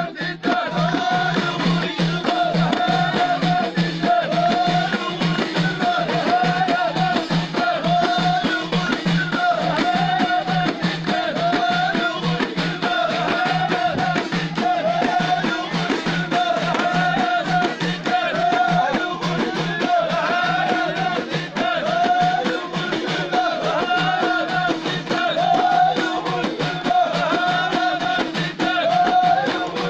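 Amazigh folk song: a group of voices singing one short melodic phrase over and over, over steady rhythmic hand-clapping and drumming.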